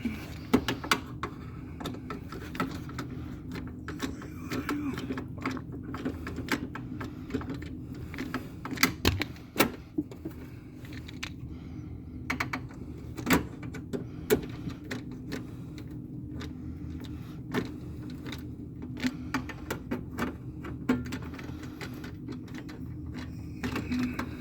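Irregular clicks, knocks and rattles of hands handling a PTAC wall air-conditioner's panel and power cord, over a steady low hum.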